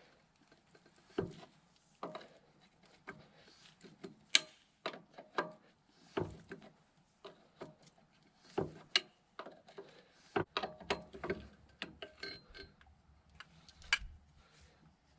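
Hand tools working on metal hydraulic fittings on a backhoe: irregular sharp clicks, clinks and knocks, with the loudest knocks about four, six, eight and a half, ten and a half and fourteen seconds in.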